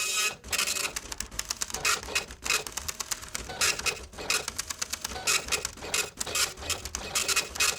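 Office photocopier running: a rhythmic mechanical clatter of sharp clicks in short bursts, repeating about once a second.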